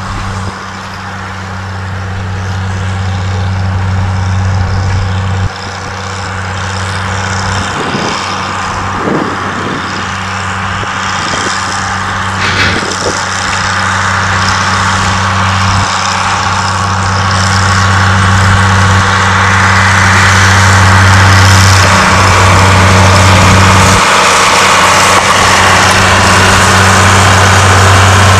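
Diesel engine of a narrow-gauge peat railway locomotive running under load as it hauls a train of loaded peat wagons, a steady low hum that grows louder as the train draws near.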